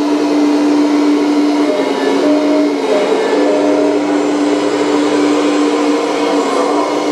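Hydraulic pump of a radio-controlled model Volvo EC480D excavator running with a steady whine while the boom, swing and grab are worked, its pitch dipping briefly a couple of times as the load changes. This is the older, noisy pump, not the newer silent type.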